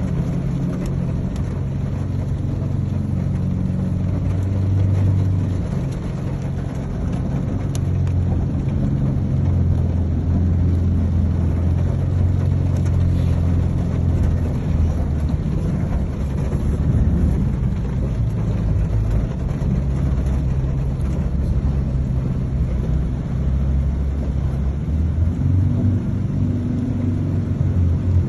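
Steady low rumble of a car, heard from inside the cabin as it drives along a flooded street.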